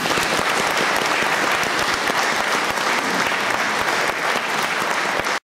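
Audience applauding at the end of a song: dense, steady clapping that cuts off suddenly near the end.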